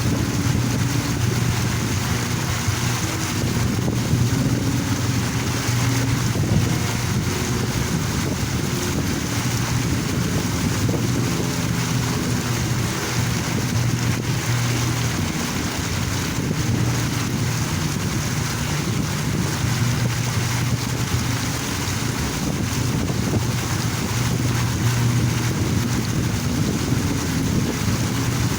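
Park water fountain splashing steadily, a continuous rush of falling water.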